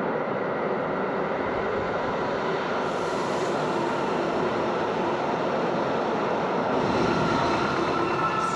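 A passing train: a steady rumble of wheels on rails, rising a little about seven seconds in, with faint high tones of wheel squeal near the end.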